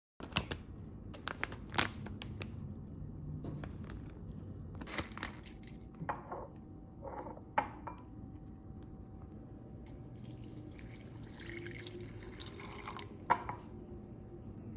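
Pieces of dried wakame clicking into a glass bowl from a scoop, with a few knocks against the glass. Then water runs into the bowl for a few seconds, about two thirds of the way in, to rehydrate the seaweed.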